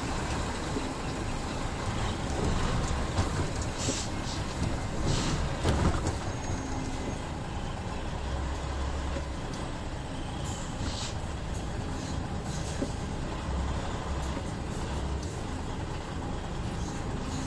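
Steady diesel engine rumble and road noise heard inside the cab of a DAF XF 105 truck driving slowly, with a few brief rattles about four to six seconds in.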